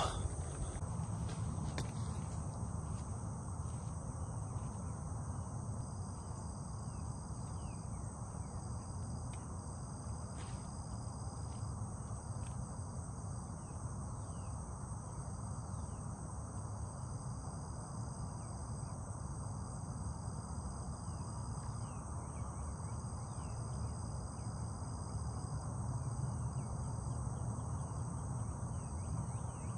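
A steady chorus of insects, several high-pitched trills held together, over a low steady rumble, with faint short chirps scattered through.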